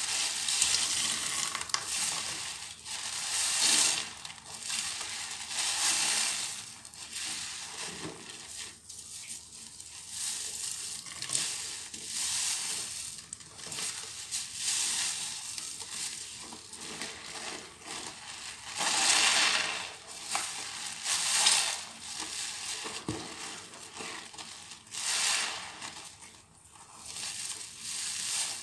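Hands squeezing and kneading a soap-soaked sponge: wet squelching and the crackle of foam, swelling and fading in irregular surges.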